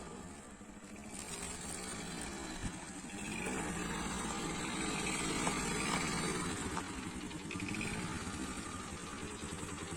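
Motorbike engine running steadily, growing louder after about a second and again a few seconds in.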